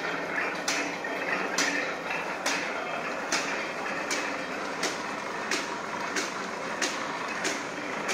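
Automatic paper bag machine running: a steady mechanical clatter of rollers and gears, with a sharp clack repeating a little under once a second that gradually quickens.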